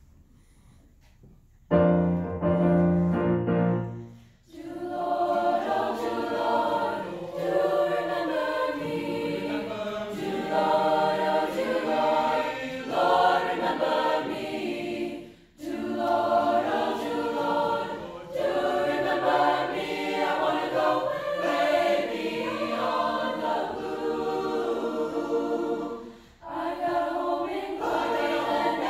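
High school choir singing a medley of spirituals. It comes in about two seconds in with a loud held chord, then sings in phrases broken by short breaths.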